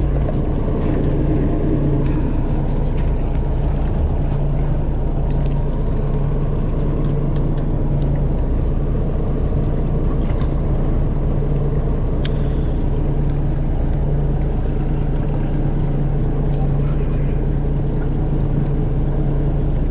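Fishing boat's engine running steadily, a constant low hum with water and hull noise over it.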